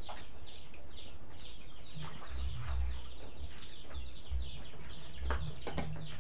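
Birds chirping: many short, high, falling chirps in quick succession, with a few sharp clicks and low thumps underneath.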